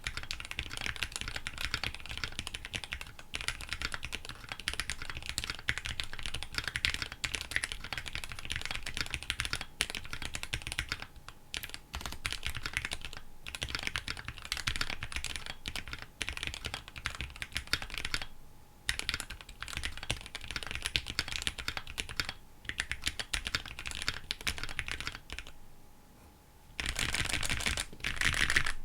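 Mechanical keyboard typing on a KBDfans D65 with Gateron Black Ink v2 linear switches and EPBT 9009 PBT keycaps: keys clacking in a fast, steady stream with a few brief pauses and a louder flurry near the end.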